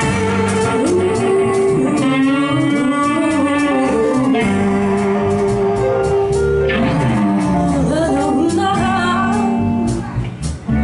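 Live band music: a woman singing into a microphone over electric guitar and bass guitar. The music dips briefly near the end.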